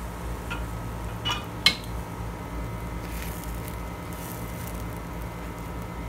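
A few short clicks and clinks of a kitchen utensil against cookware, three in all, the sharpest a little under two seconds in, over a steady low hum.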